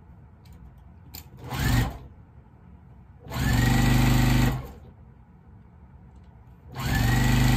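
Juki sewing machine stitching fabric in short runs: a brief burst about a second and a half in, then two longer runs of a second or more each, separated by pauses. Each run starts with a whine that rises in pitch and then holds steady as the machine comes up to speed.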